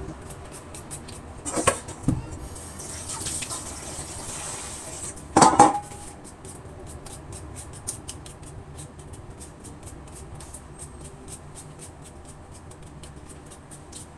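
Potato being peeled with a hand-held vegetable peeler: a quick run of short scraping strokes, several a second, through the second half. Earlier come two louder clatters, about two and five and a half seconds in (the second the loudest), with a brief hiss between them.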